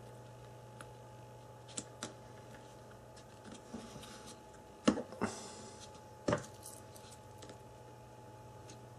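Small smartphone parts being handled and fitted back together: about half a dozen sharp clicks and taps of small hard pieces, the loudest about five and six seconds in, over a faint steady hum.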